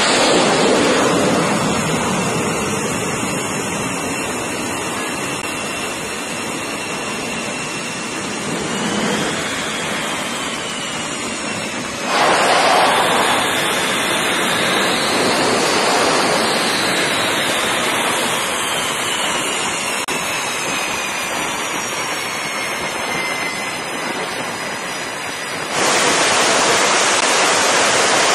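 Jet engines of an F/A-18 Super Hornet running at the catapult: a steady rushing roar with a high turbine whine that slowly drifts in pitch. The roar jumps louder suddenly about 12 and 26 seconds in.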